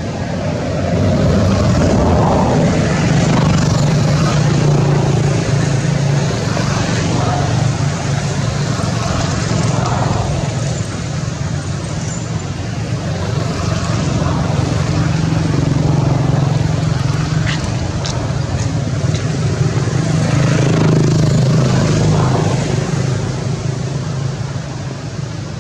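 A motor engine running steadily with a low hum that grows louder and softer by turns.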